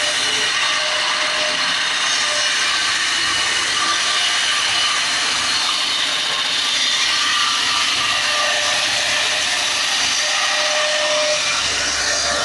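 Sawmill saw cutting through timber: a loud, steady cutting noise with a faint whine, unbroken throughout.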